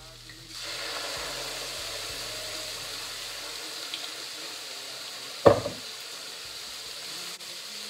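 Red wine poured into a hot pot of frying vegetables, with a steady hiss and sizzle that starts about half a second in as the wine hits the pan and steams off. About five and a half seconds in, the glass wine bottle is set down on the benchtop with a single clunk.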